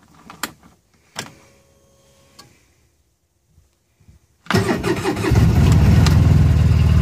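A few light clicks, then, about four and a half seconds in, the 2009 Polaris RZR 800 S engine is cranked by its newly replaced starter, catches within about a second and settles into a steady idle. The starter turns the engine over and it fires cleanly, the sign that the starter fault is cured.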